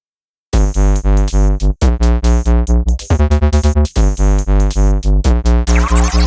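Electronic background music: synthesizer chords and a heavy bass beat in a steady pulsing rhythm, starting about half a second in, with a rising sweep near the end.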